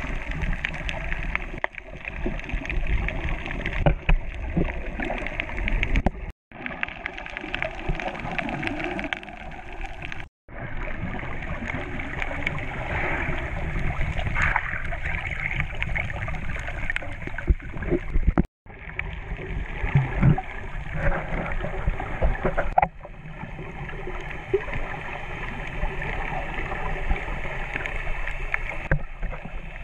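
Muffled underwater water noise, gurgling and swirling, as picked up by a submerged camera. It breaks off for an instant three times.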